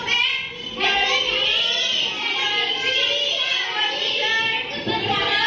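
A class of young children's voices calling out together in a drawn-out, sing-song chorus.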